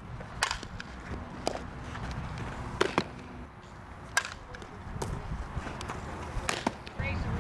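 Softball bat hitting ground balls: a handful of sharp knocks a second or more apart, the loudest about three and four seconds in.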